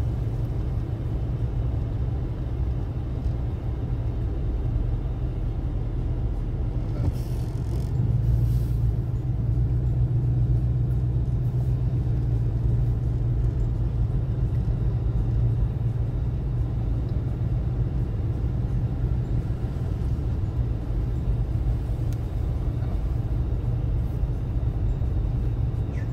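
Steady low rumble of a car's engine and tyres heard from inside the cabin while driving, growing a little louder about eight seconds in.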